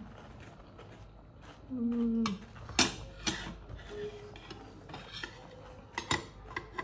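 Dishes and eating utensils clinking: a few sharp clicks and knocks, with a short hummed voice sound about two seconds in.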